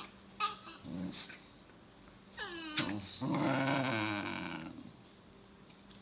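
Basenji growling and whining in protest at its sibling pawing at its tail: a short falling whine about two and a half seconds in, then a wavering growl-whine lasting nearly two seconds.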